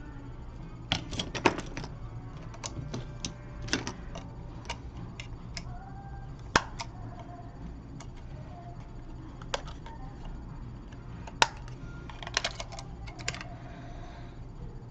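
Scattered small sharp clicks and taps of precision tools and tiny screws being worked as an iPhone 6 is taken apart down to its main board, some in quick clusters, over a steady low hum.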